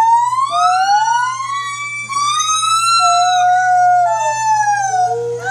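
White-handed gibbon calling: a run of long, clear hooting notes that glide upward in pitch, some held level, with notes at times overlapping.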